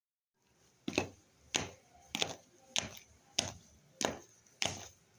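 Footsteps of a person walking at a steady pace, about seven evenly spaced steps at a little under two a second, each a sharp tap. They start about a second in.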